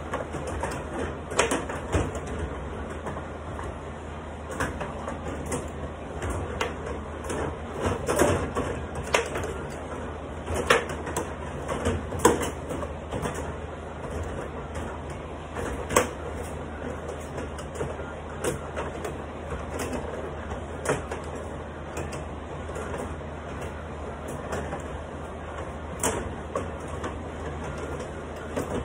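Carrom bubble hockey table in play: irregular plastic clacks and knocks from the puck, the players and the control rods as they are pushed and spun, some hits sharp.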